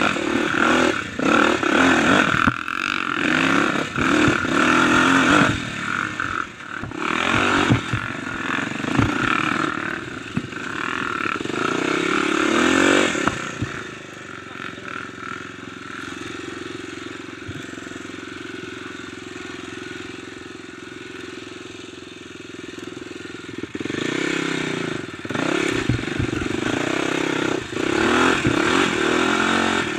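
Kawasaki dirt bike engine, heard from the rider's seat, revving up and down over and over on rough singletrack, with rattle and clatter from the bike. About 14 seconds in the throttle eases to a lower, steadier running for about ten seconds, then the revving picks up again.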